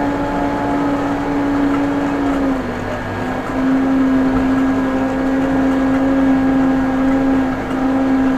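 Case 580M backhoe loader's diesel engine running steadily at working revs, its pitch dipping briefly about two and a half seconds in and then coming back up.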